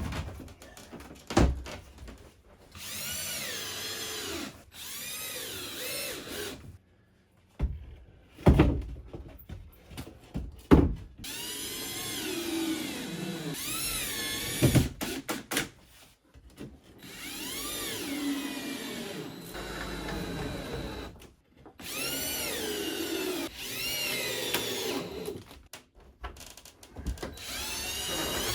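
Power drill running in repeated short bursts of a few seconds, its whine wavering up and down in pitch, with a few sharp knocks between runs.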